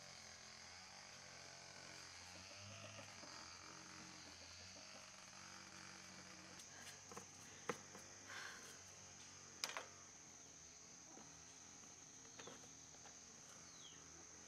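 Faint steady chirring of insects, with light brushing and a couple of sharp taps as a paintbrush and cloth clean the dusty plastic fan base.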